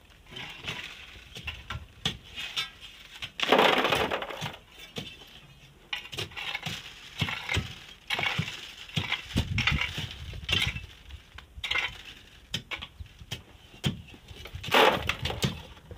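Hand tools digging a sand-and-rock face: a long iron bar and a hoe striking stones and scraping through sand, giving irregular clinks and knocks. Louder rushes of scraping or loosened sand and gravel come about four seconds in and again near the end.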